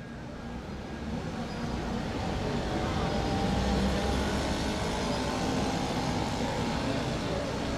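Street traffic: a vehicle passing, its sound growing over the first few seconds and then holding steady.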